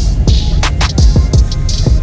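Electronic, hip-hop style background music with a heavy beat: deep bass-drum hits that slide down in pitch, sharp snare-like hits and hissing cymbal sounds.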